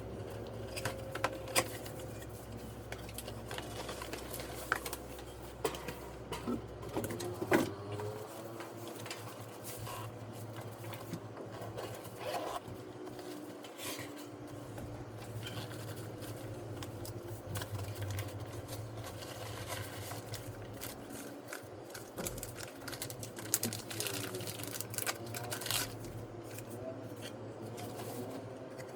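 Hands handling boxed gear and packaging: scattered clicks, taps, scrapes and rustles, a few sharper ones, over a steady low hum.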